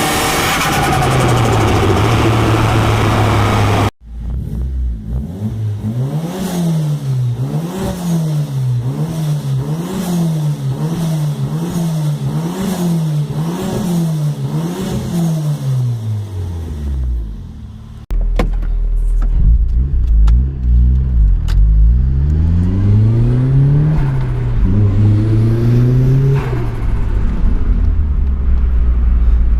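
Turbocharged car engines free-revving in three short clips. The first is held at steady revs that drop about a second in. The second is blipped up and down about eight times in quick succession, with a fluttering chatter as each rev falls. The third is revved up and let fall twice over a deep exhaust rumble.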